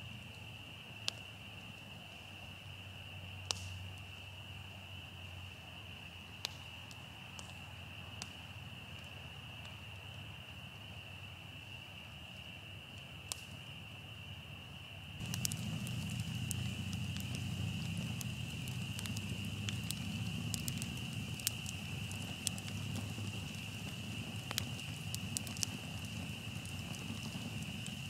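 Steady high-pitched chorus of frogs chirping, with the scattered pops and crackles of a wood campfire. A little over halfway through, the fire gets louder and its crackling comes thicker and faster.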